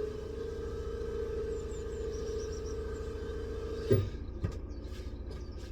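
A machine running steadily, with a low pulsing hum and a constant mid-pitched whine; the whine cuts off with a knock about four seconds in, followed by a lighter click.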